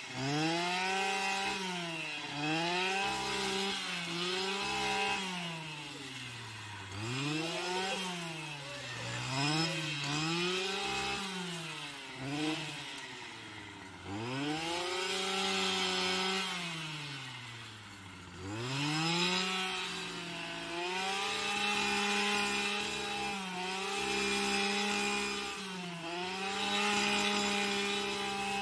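Stihl petrol grass trimmer cutting tall grass, its engine revs rising and falling every second or two, then holding steady at high revs for the last several seconds.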